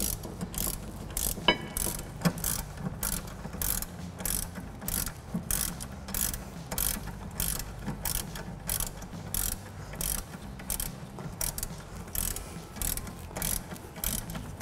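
Hand ratchet clicking as it runs down the brake caliper bracket bolts, a steady series of sharp clicks a few times a second.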